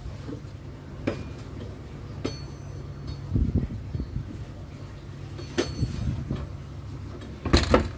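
A door being worked open and shut, with several sharp knocks and clunks against its frame, the loudest near the end, over a steady low rumble.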